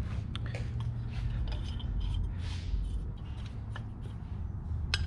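Light handling of a cast rocker box on a Harley Twin Cam cylinder head: scattered soft clicks and taps, with a brief rub about halfway through, over a steady low hum.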